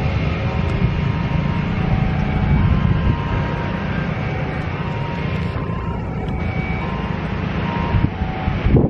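Twin-engine jet airliner's engines running steadily at low thrust as it turns on the runway, a continuous rumble with a faint whine.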